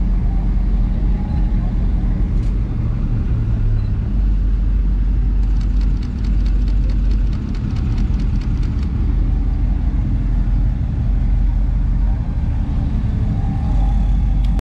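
A motor vehicle engine running with a steady, deep rumble, with a fast even ticking for a few seconds in the middle.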